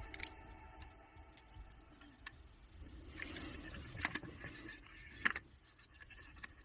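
Handling noise from working on a cassette Walkman: a few faint, scattered clicks, with a soft scrape around the middle.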